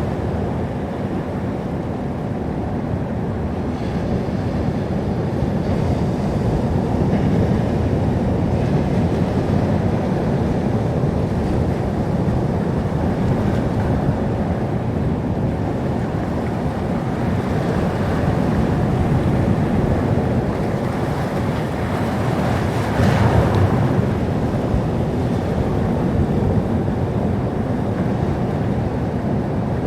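Sea surf: a steady rush of waves washing on the shore, swelling and easing, with one louder wave breaking about 23 seconds in.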